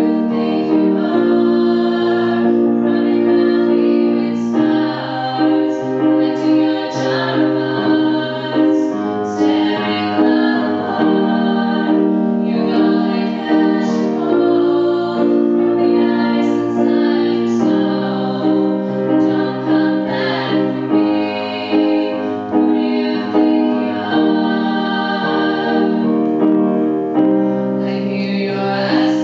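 Three young women singing together, amplified through a microphone, accompanied by chords on an electronic keyboard.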